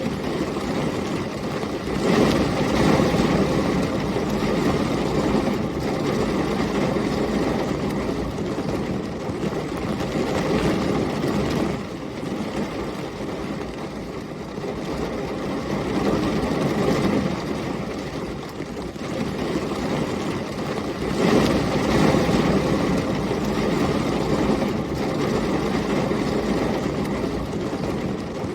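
Heavy rain and storm wind, a steady deep rushing that swells louder twice, about two seconds in and again about twenty-one seconds in.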